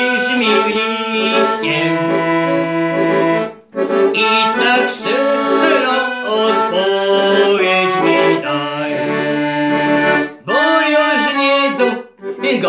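Weltmeister piano accordion playing a folk tune, melody over chords, with short breaks in the sound about three and a half seconds in and again near ten and twelve seconds.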